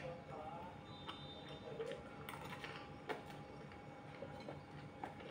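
Metal spoon clinking and scraping on a plate while eating, a few light clicks about two, three and five seconds in, over a faint steady hum.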